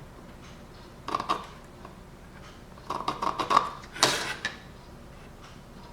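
Tools being handled and set down on a workbench while measuring and marking a plastic blast gate: short clatters and clicks in three brief bursts, about a second in, around three seconds and about four seconds in.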